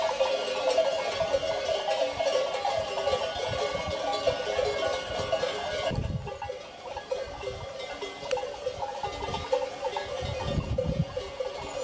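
Many cowbells clanking and jangling together on a herd of cattle walking along a road, quieter after about six seconds in.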